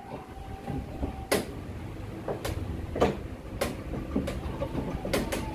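Sharp knocks of wooden chess pieces and chess clock buttons being struck during fast blitz play, about seven at irregular spacing, over a steady low background rumble.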